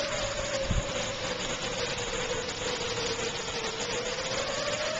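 Heavy rain pouring steadily, with an outdoor warning siren sounding one long steady tone that sags slightly in pitch and rises again near the end.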